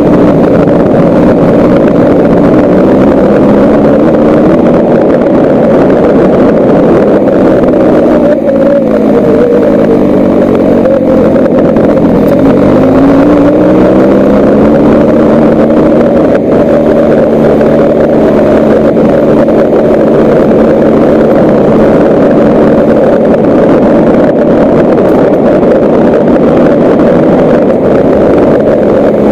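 A vehicle engine runs while driving along a gravel road, under heavy wind and road noise. Its pitch drops a little before halfway through, then rises again.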